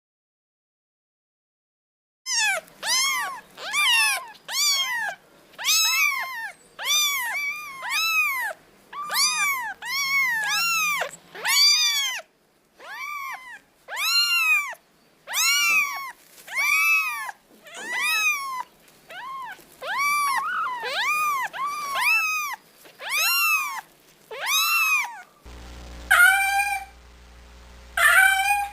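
Cat meowing over and over, roughly one high-pitched meow a second, each one rising and then falling in pitch. Near the end a low steady hum comes in under a few more meows.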